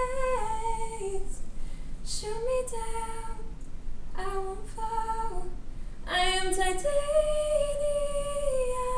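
A woman singing solo without accompaniment, in short phrases of held notes that step down in pitch, with a louder phrase about six seconds in and a long held note that falls away near the end.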